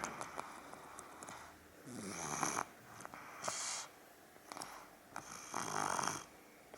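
A two-year-old toddler snoring loudly, with three harsh, noisy breaths a second or two apart and a rapid fluttering rattle in the quieter stretches between them.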